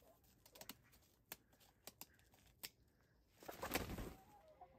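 Scissors snipping through a hen's primary flight feathers: a handful of faint, sharp snips spread over the first three seconds, then a brief louder rustling burst near the end.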